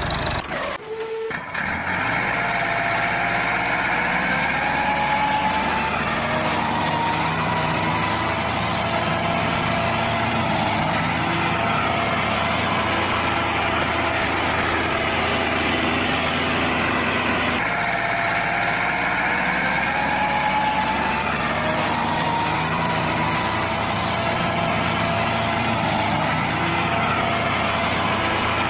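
Tractor engine running steadily. It starts after a short break about a second in, with a faint whine that rises slowly, and the same pattern starts over about halfway through, like a looped recording.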